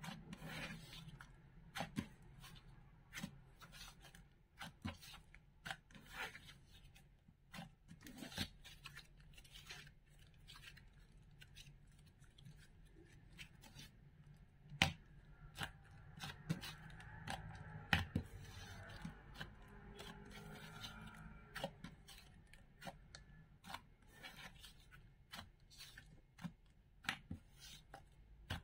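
Fingers kneading and poking soft butter slime, making irregular clicks and small squishy pops, a few a second, over a faint steady low hum.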